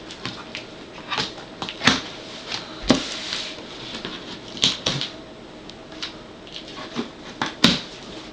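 Cardboard shipping carton being handled and opened, with packing material inside it: irregular knocks, clicks and scrapes with rustling between them.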